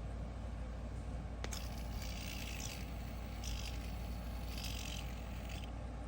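Metal fidget spinner with a freshly fitted bearing being handled: a sharp click about one and a half seconds in, then several short scraping hisses over a low steady hum.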